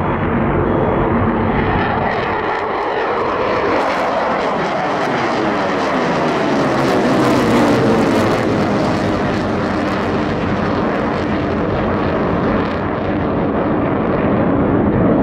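Eurofighter Typhoon's twin EJ200 turbofans running at full afterburner as the fighter climbs steeply away after a performance take-off. The sound is loud and continuous, its tone sweeping slowly as the jet gains height, with a rough crackle in the middle seconds.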